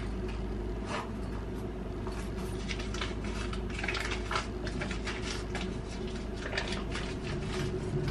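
Kitchen food-preparation sounds: scattered light clinks and rustling of utensils and packaging at a counter over a steady low hum.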